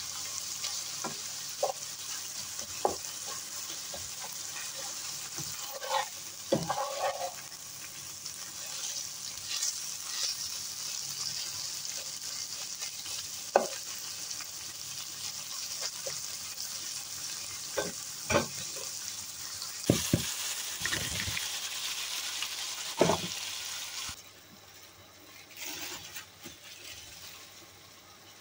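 Ground meat frying and sizzling in a nonstick pan, stirred with a slotted spatula that knocks and scrapes against the pan every second or two. About four seconds before the end the sizzle drops to a much quieter level.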